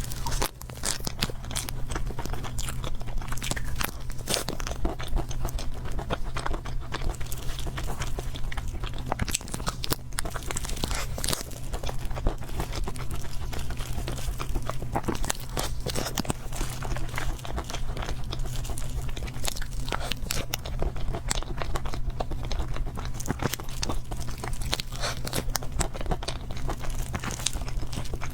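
Close-miked mouth sounds of someone chewing and biting into chocolate cake: a continual run of small wet clicks and crunches, over a steady low hum.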